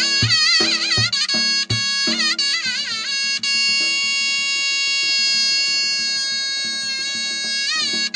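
Music: a reedy wind instrument plays a wavering melody over a steady drone, with drum beats about three a second for the first couple of seconds. It then holds one long note before the wavering melody returns near the end.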